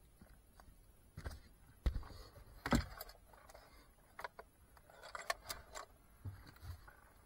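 Handling noise: scattered knocks and clicks with light rustling, the two loudest knocks about two and three seconds in.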